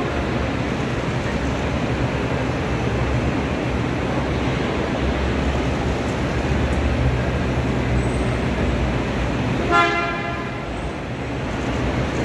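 Vintage GAZ cars driving in a parade with engines running, a steady low rumble, and a car horn sounding once, briefly, about ten seconds in.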